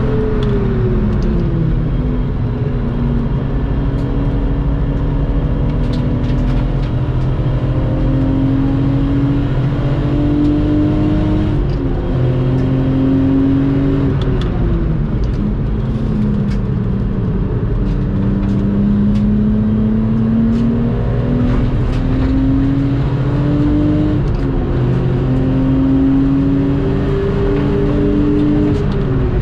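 Lexus IS200's engine being driven hard on a race circuit. The engine note climbs steadily in long pulls and drops sharply at each upshift. Near the middle the note falls more slowly, as under braking, before climbing again.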